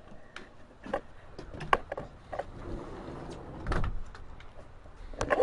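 Scattered clicks and knocks from a door being opened and handled, about half a dozen sharp hits spread over a few seconds.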